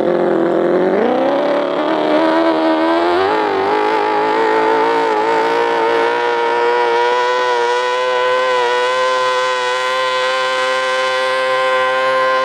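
Jet boat engine revving up and running at high revs. It starts abruptly, climbs in pitch over the first three seconds or so, then holds a steady high pitch.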